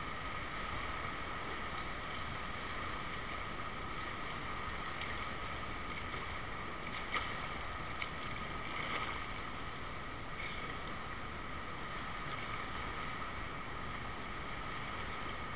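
Steady hiss of an indoor pool hall, with a few faint splashes from a front-crawl swimmer nearing the wall about halfway through.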